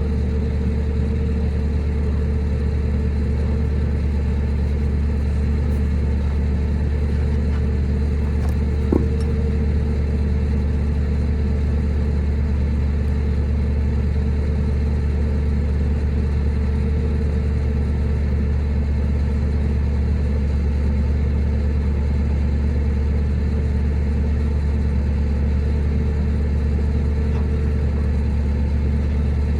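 Engine running steadily at idle, a constant low drone, with one brief click about nine seconds in.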